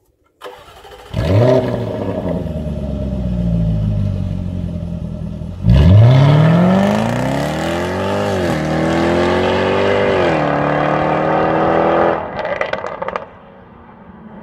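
Jaguar F-Type SVR's supercharged 5.0-litre V8 starting with a rev flare, then idling. About six seconds in, it accelerates hard away with rising revs broken by two upshifts, and lifts off near the end with a few crackles from the exhaust before fading into the distance.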